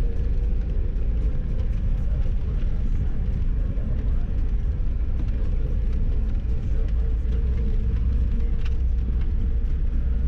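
Lada Niva driving on a rough dirt road, heard from inside the cabin: a steady, heavy low rumble of the engine and drivetrain, with a few faint knocks.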